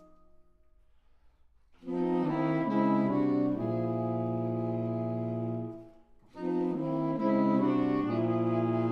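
Saxophone quartet of soprano, alto, tenor and baritone saxophones playing together: after a pause of nearly two seconds the four horns enter with a few quickly changing chords and settle on a held chord, break off briefly about six seconds in, then start another similar phrase.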